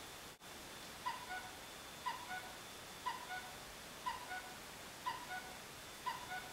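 Recorded bird chirps played by an iPhone birdhouse alarm-clock app: a short two-note chirp repeated six times, about once a second, starting about a second in.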